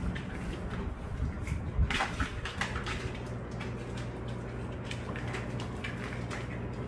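Dogs and a puppy scuffling in play on a hard wooden floor: irregular clicking and scrabbling of claws and paws, with a cluster of louder knocks about two seconds in, over a steady low hum.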